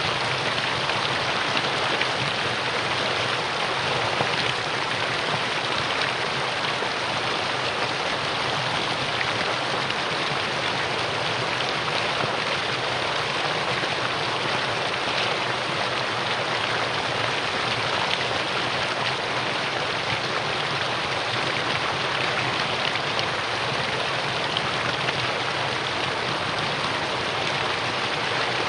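Mountain stream rushing steadily over rocks, an even, unbroken water sound.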